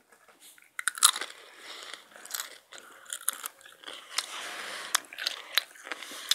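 Close-up mouth-full chewing of crunchy rolled spicy tortilla chips (Takis): irregular crisp crunches, with the loudest crunch about a second in.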